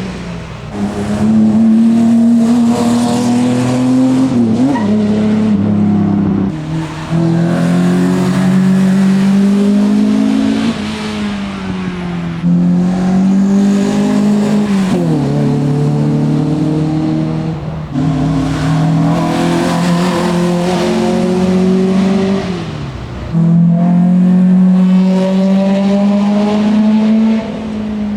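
Racing car engine at high revs, its pitch climbing and then dropping again and again as it changes gear.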